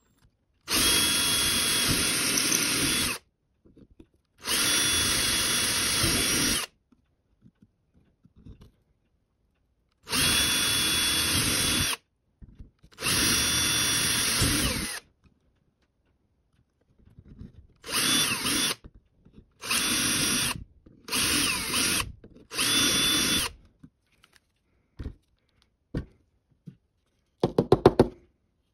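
Ryobi ONE+ cordless drill with a 4.5 mm bit drilling through a plastic Quad Lock adaptor held in a 3D-printed guide jig. There are four steady runs of two to three seconds each, then four shorter runs of about a second each. A few clicks and a brief clatter come near the end.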